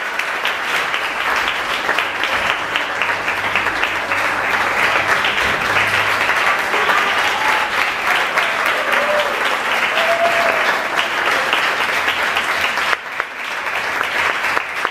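Audience applauding steadily, with a short lull near the end.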